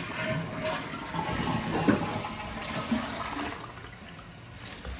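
Test flush of a newly installed Gerber toilet: water rushes from the tank through the bowl, and the rush slowly fades over the last few seconds.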